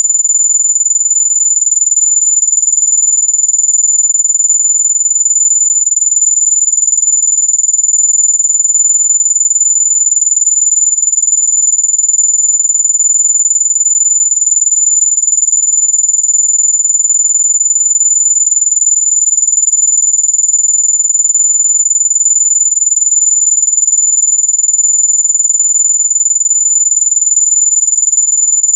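Electronic mosquito-repellent tone: a single very high-pitched pure tone held steady and unbroken, sold as a sound that keeps mosquitoes and bugs away.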